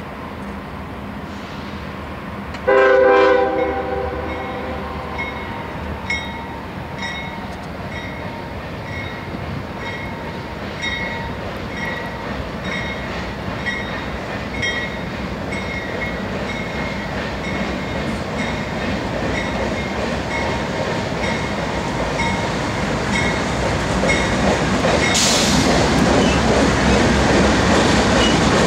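Diesel freight locomotives approaching and passing: the horn gives one short blast about three seconds in, then the locomotive bell rings steadily about twice a second over the engines and rolling train, which grow louder as the train nears. Near the end there is a brief high squeal from the wheels.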